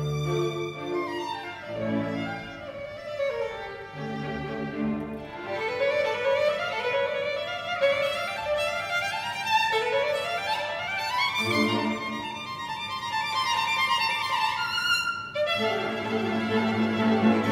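An orchestra led by its violins playing classical music, with quick rising runs repeated several times. Near the end the full orchestra comes in louder, with the low strings.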